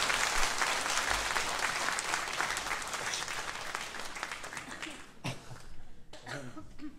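Audience applauding, thinning out to scattered claps after about five seconds, with a man's voice briefly near the end.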